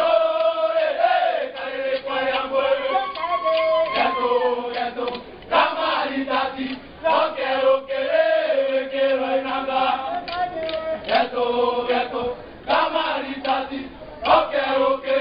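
Group of voices chanting a traditional Kimeru song in unison, in phrases broken by short pauses.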